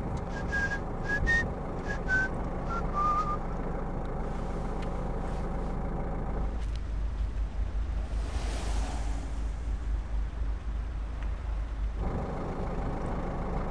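Steady low rumble of street traffic heard from inside a parked car. There are a few short high chirps in the first three seconds and a broad rushing swell about eight seconds in.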